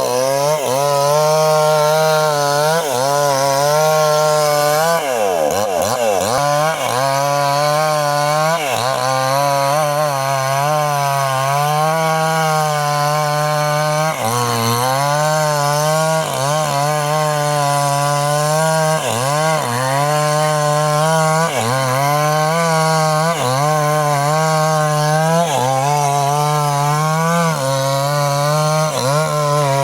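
Small chainsaw cutting young teak wood into a beam. The two-stroke engine runs at high speed, its pitch dropping and recovering every second or two as the chain bites into the wood, with one deeper drop about five seconds in.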